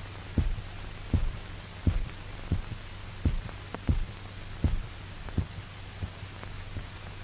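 Heartbeat thumps, a little more than one a second, over a steady low hum, growing weaker near the end as a dog's heart fails from blood loss.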